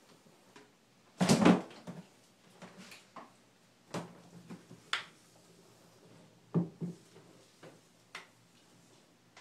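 Scattered knocks, bumps and scuffs, with a louder rustling scrape about a second in and single sharp knocks every second or so after it.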